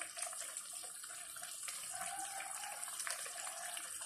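Chicken tinola broth simmering in an open wok, a steady bubbling with a faint hiss; the soup is cooked through.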